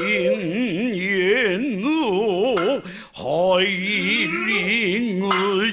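A voice singing or chanting long held notes with a fast, wide wobble in pitch, broken by a short gap about three seconds in.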